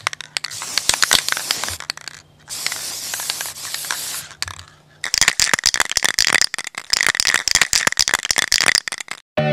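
Spray-paint can rattling and hissing, a dense run of irregular clicks over spray hiss. It drops out briefly about two seconds in and again about halfway, and a steady low hum sits under the first half.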